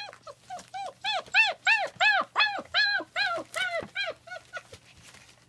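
German Shepherd puppy whining, a quick run of high-pitched yelps that each rise and fall in pitch, about three a second, growing fainter near the end.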